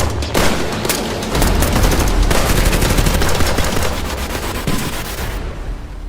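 Heavy rapid gunfire: many overlapping shots in quick bursts over a deep rumble, like a firefight with automatic weapons, thinning out and fading away near the end.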